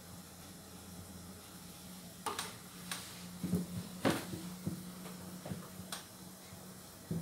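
Scattered light knocks, taps and scuffs, about nine of them, thickest in the middle, from two cats playing on a tile floor. A steady low hum runs underneath.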